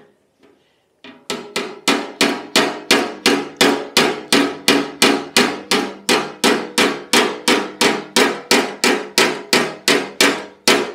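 Light hammer taps on a Lambretta scooter's steel legshield, backed by a steel dolly, knocking out a ridge around a hole. The taps come evenly, about three a second, starting about a second in, and each one sets the panel ringing.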